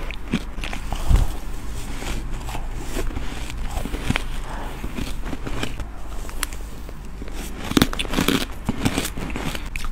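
Crunching bites of crushed ice off a metal spoon, with crackling and the spoon scraping through the ice; a low thump about a second in, and the loudest crunches near the end.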